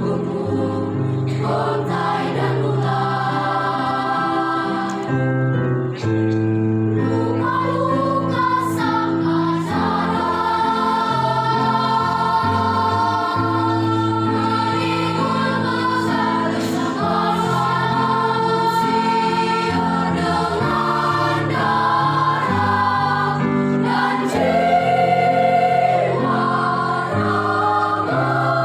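Mixed choir singing a hymn in several voice parts, holding sustained chords that change every second or two.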